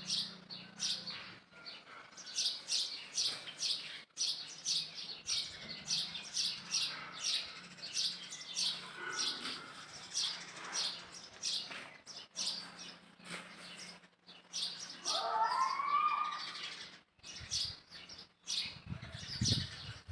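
Birds chirping repeatedly, short high chirps about two to three a second, with a longer wavering call about three-quarters of the way in and a couple of low thuds near the end.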